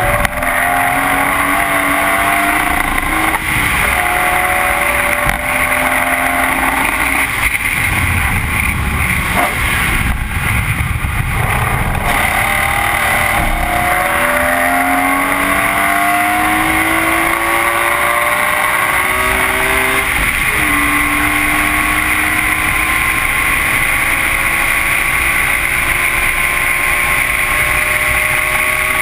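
BMW E46 M3's 3.2-litre S54 straight-six pulling hard through the gears. Its pitch climbs and drops at each upshift, goes rough and unsteady off the throttle for a few seconds midway, then makes a long slow climb in a high gear near the end. Steady wind and tyre hiss comes through on the outside-mounted camera.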